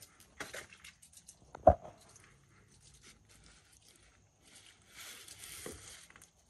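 Small scrapes and ticks from a black-throated monitor lizard moving over gravel and rocks as it noses an egg. There is one sharp knock a little under two seconds in, and a soft hiss about a second long near the end.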